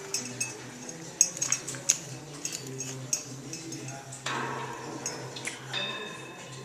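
Pet bird handling a chunky wooden toy: irregular clicks, taps and small clinks as its beak works the toy and its parts knock together. A faint steady low hum runs underneath.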